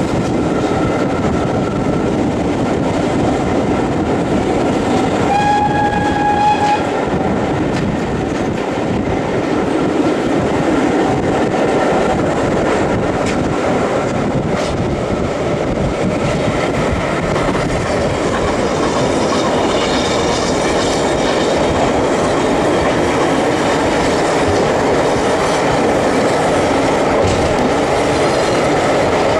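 Running noise of a railway coach hauled by the BR Standard Class 4MT 4-6-0 steam locomotive No. 75029: a steady rumble of wheels on the track. About five seconds in, the locomotive's whistle sounds once, a single high note lasting about a second and a half.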